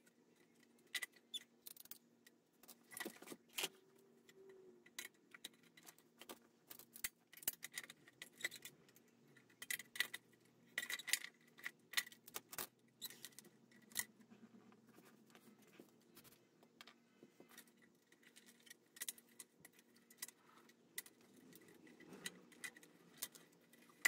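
Scattered light metallic clinks and taps of hand tools against the compressor's pressure switch and its valve fitting as the switch is worked loose. The taps come irregularly, busiest in the first half and only a few near the end.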